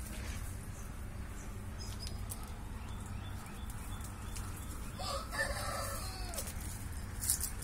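A rooster crows once, about five seconds in, in a single call of about a second and a half, over a steady low rumble.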